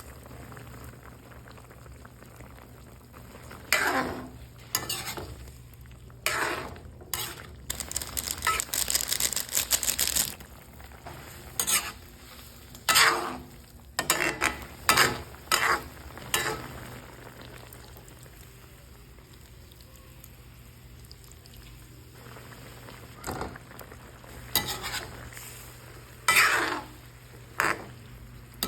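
Chicken liver and quail eggs sizzling in a frying pan, with a utensil repeatedly stirring and scraping against the pan in quick strokes.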